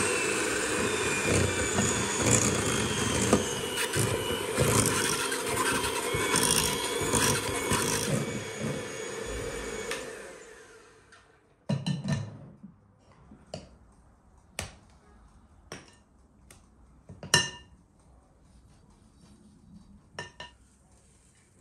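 Electric hand mixer running steadily, its beaters whipping chocolate cream in a glass bowl; the motor winds down and stops about halfway through. After it, a spatula scrapes and taps against the bowl a handful of times while the cream is spread on a cake.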